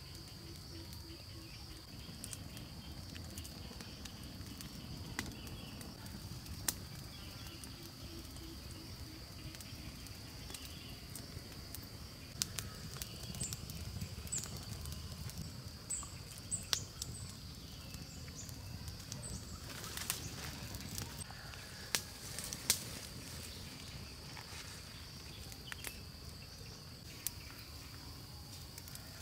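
Forest ambience: a steady high-pitched insect drone, with scattered sharp clicks and knocks and a few short high chirps around the middle.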